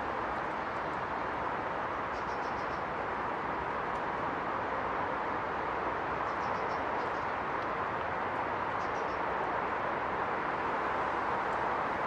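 Steady rushing of flowing river water, with faint high thin calls from small birds coming in short runs of a few notes, three times.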